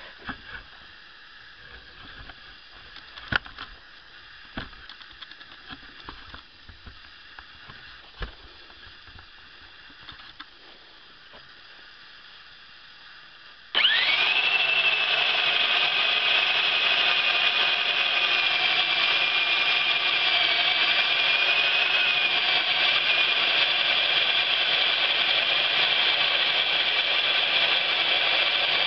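Homemade handheld bandsaw mill switched on about halfway through, then running steadily with a high whine as its band blade cuts along a cedar 4x4. Before it starts there are only a few light knocks and clicks of handling.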